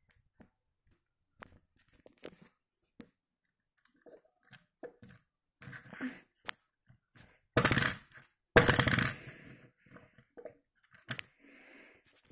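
Die-cast toy Alpine A110 being handled on a wooden tabletop: small scattered clicks and taps, its opening doors pressed shut. About halfway through come two loud rattling runs, one short and one about a second long, as the car is pushed along on its small wheels.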